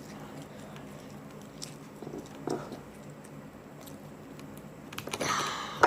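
Close-up mouth sounds of biting and chewing a piece of spicy chicken, with small wet clicks. There is a brief louder bite about halfway through and a louder, longer bout of chewing near the end, where the piece is hard to bite through.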